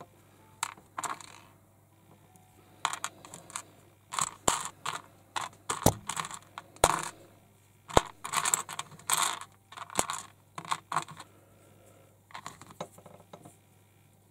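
Small plastic toy figure parts and packaging being handled: irregular bursts of crinkling rustle with several sharp plastic clicks.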